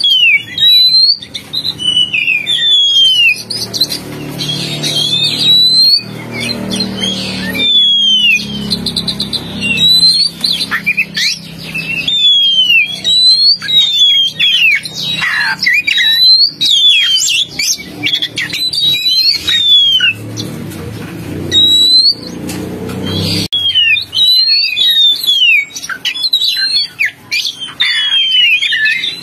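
Oriental magpie-robin (kacer) song played as a bird-lure recording: a rapid, varied run of loud whistles and quick sweeping notes. A low drone sits underneath twice, for a few seconds each time.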